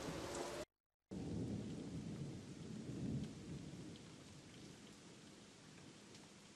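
A steady hiss with a deep rumble, like rain and thunder. It cuts out completely for a split second about a second in, comes back with the rumble swelling, then fades to a faint hiss over the last few seconds.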